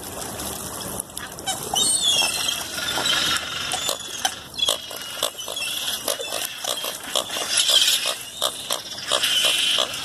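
A flock of ducks, coots and gulls crowding on the water near the shore, making a fast run of short clicking, clucking calls mixed with higher gull cries; the clicking gets busier about four seconds in.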